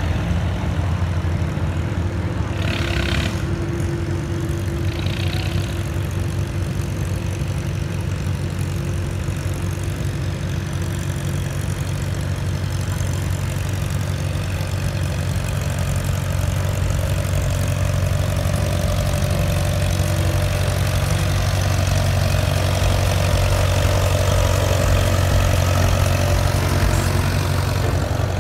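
Antique farm tractor engine running steadily at a low, even beat, growing louder in the second half as the tractor draws near and passes.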